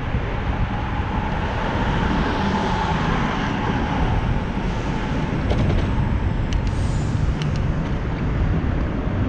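Steady wind and road noise on a bicycle-mounted action camera while riding, heaviest in the low end, with traffic alongside. A few faint clicks come in past the middle.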